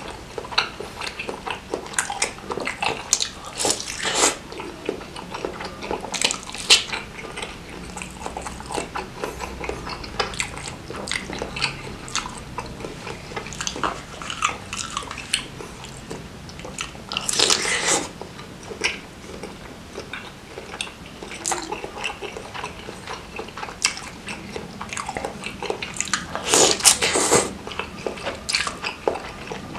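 Close-miked mouth sounds of eating bakso: repeated biting and wet chewing of a beef tendon meatball (bakso urat). Longer, louder slurps of noodles in broth come about halfway through and again near the end.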